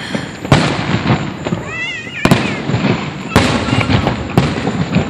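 Aerial fireworks shells bursting: four loud bangs about a second apart, with a steady din of crackle between them.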